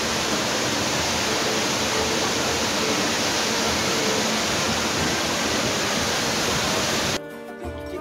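Tall waterfall pouring into a rock pool: a loud, even rush of falling water that cuts off suddenly about seven seconds in.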